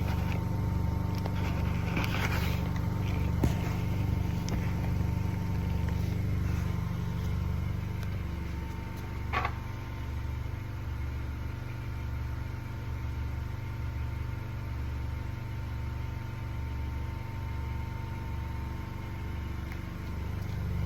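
2018 Honda Accord Sport's 1.5-litre turbocharged four-cylinder engine idling with a steady low hum. Its sound drops a little about eight seconds in, and a brief sharp sound comes about a second later.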